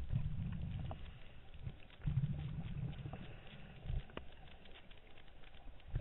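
A scuba diver's exhaled bubbles rumbling out of the regulator in bursts every couple of seconds, heard underwater through the camera housing, with faint scattered ticks between breaths.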